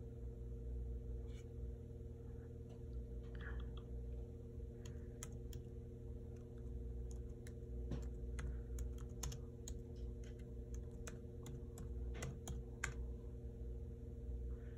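Laptop keyboard typing: irregular, sharp key clicks in clusters, mostly through the middle and latter part, over a steady low hum.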